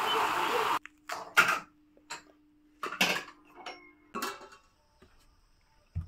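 Liquid pouring steadily through a strainer into a kettle, cut off suddenly just under a second in; then glass cups and dishes clinking and knocking as they are lifted off cabinet shelves and set into a plastic crate, about half a dozen clinks over three seconds, the loudest about a second and a half in.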